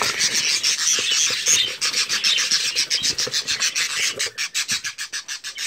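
Agitated budgerigars in a cardboard shipping box giving a fast, raspy chatter of about ten pulses a second. The birds are angry and biting at the hand reaching in.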